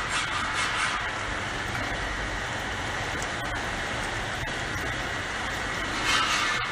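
Rotary external ampoule washing machine running: a steady hiss of spray over a low motor hum, with a louder burst of spray about six seconds in.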